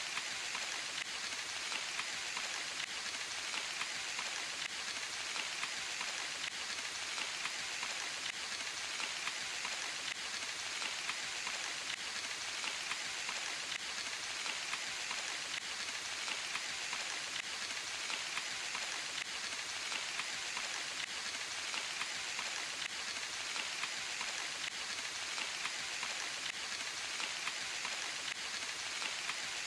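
Steady rain falling in a forest, an even hiss of many small drops pattering on leaves and surfaces.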